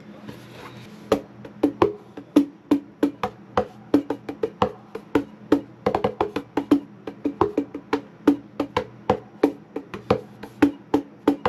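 Gecko Mini Cajon SD6 struck in a quick, uneven run of taps and slaps, starting about a second in, several strikes a second.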